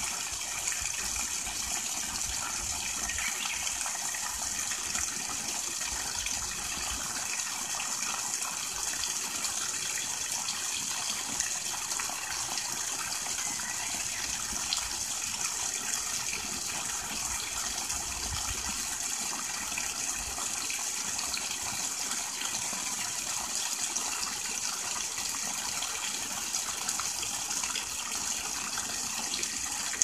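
Water pouring steadily from a pipe outlet and splashing onto rocks and into a shallow pool: an even, unbroken splashing hiss with no let-up.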